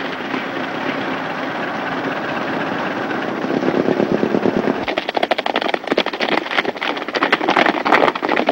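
An early open motor car's engine runs with a steady rattle as it drives off. From about five seconds in, a group of galloping horses takes over with a loud, irregular clatter of hoofbeats on a dirt road.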